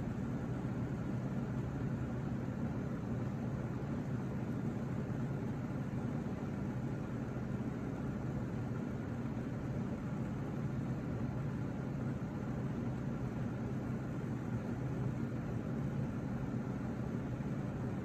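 Steady low mechanical hum with an even hiss over it.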